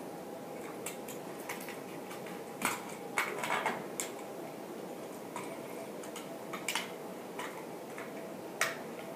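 Irregular small clicks and clinks of metal and plastic parts being handled as wiring is tucked into a ceiling fan's switch housing and light kit. A quick cluster of clicks comes about three and a half seconds in, over a steady background hum.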